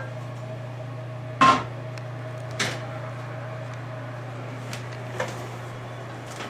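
A few knocks of hard things handled and set down over a steady low hum. The loudest knock comes about a second and a half in and rings briefly, a smaller one follows a second later, and a faint one comes near the end.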